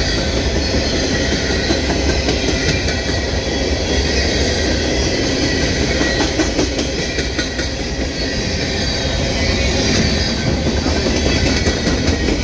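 Long freight train rolling past: a steady rumble of wheels on rail, broken by clusters of clicks as the wheels cross rail joints.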